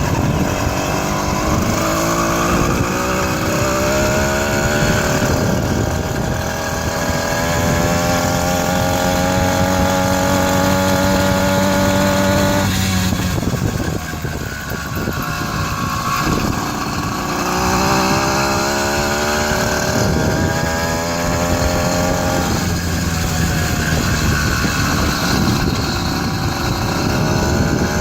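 80cc two-stroke 'China girl' motorized bicycle engine running under way, its pitch climbing as it speeds up. It drops off sharply about halfway through, then picks up again, with a few more dips and climbs near the end. The engine is still not fully tuned.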